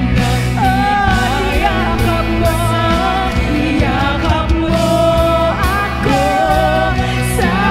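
Live worship band playing: women singing a Tagalog worship song in unison into microphones over drum kit and acoustic guitar.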